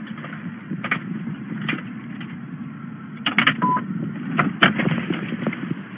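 Inside a police car as it drives: a steady low engine and road rumble with scattered clicks and rattles, and a short beep about three and a half seconds in.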